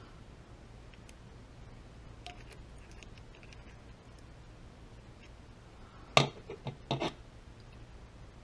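Engine parts and tools being handled during reassembly: quiet stretches with faint clicks, then a loud sharp clack about six seconds in with a few smaller clicks after it, and another short cluster of clacks about a second later. A faint steady low hum runs underneath.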